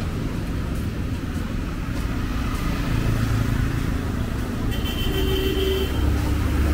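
Street traffic: motor vehicles passing with a steady low engine rumble, and a short pitched tone about five seconds in.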